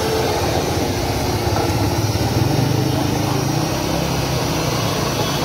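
Electric countertop blender motor running steadily, grinding tomatoes into chutney.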